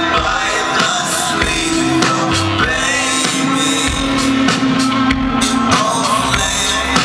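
Live rock band playing loudly, with drums, guitar and keyboards and a singer's vocals.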